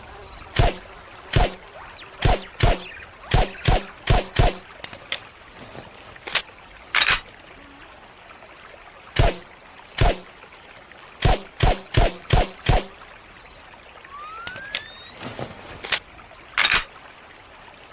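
Smith & Wesson Model 39 9mm pistol fired with a suppressor: about twenty muffled shots, some single and some in quick runs of three to five, over a steady high hiss.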